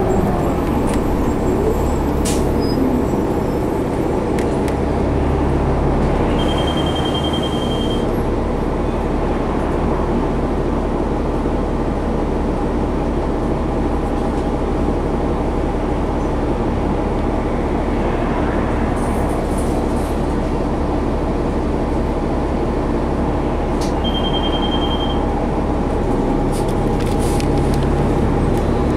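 A 2011 New Flyer D60LFR articulated diesel bus under way, heard from inside: its Cummins ISL engine and Allison automatic transmission run with a steady drone, easing off with a falling tone right at the start. A short run of rapid high-pitched beeps sounds twice, about six seconds in and again near the end.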